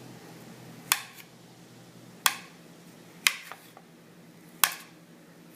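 A hard object striking a hard surface: five sharp knocks, spaced about a second or so apart, each with a brief ring.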